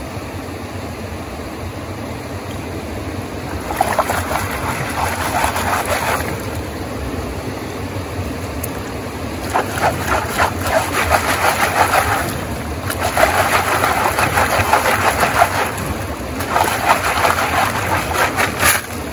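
A river rushing steadily, with several louder bouts of water and gravel being sloshed and rattled in a gold pan and classifier.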